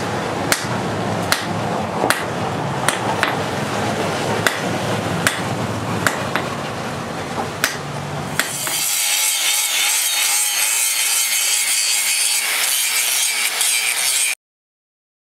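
Hammer blows on a red-hot axe head on a post anvil, a sharp strike about every 0.8 s over a steady noise. About nine seconds in, an angle grinder takes over, grinding the axe steel with a hissing, wavering whine that cuts off suddenly near the end.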